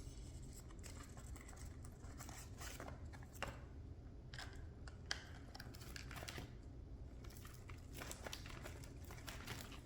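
Cuban Amazon parrot rummaging in a cardboard foraging box, tearing and crinkling paper and cardboard with its beak: a faint, irregular run of crackles, rustles and small clicks, a couple of them sharper.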